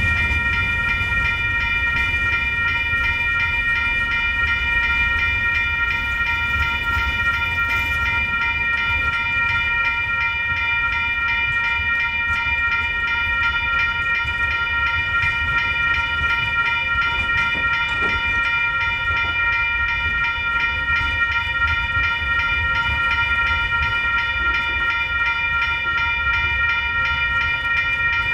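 Grade-crossing warning bell ringing steadily and rapidly, over the low rumble of freight cars rolling past on the rails.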